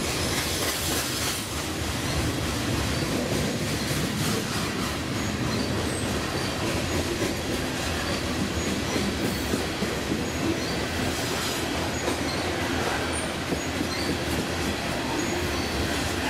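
Loaded coal hopper cars of a freight train rolling past on the rails: a steady rumble of wheels on track with light clicking, and scattered brief high wheel squeals.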